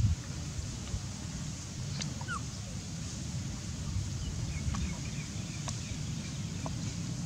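Faint short squeaks and whimpers from baby macaques over a steady low rumble.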